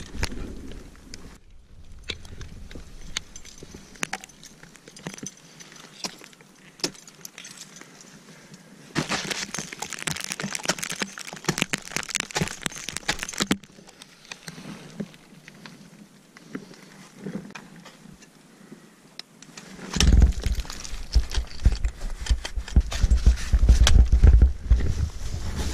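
Ice axe picks and crampon points striking and scraping ice and rock, with climbing hardware clinking; a dense run of strikes and scraping comes in the middle. Near the end a low rumbling on the microphone joins in.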